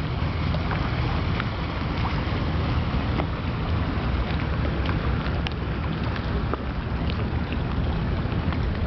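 Wind rumbling on the microphone over small waves lapping, with scattered faint clicks and little splashes in the water.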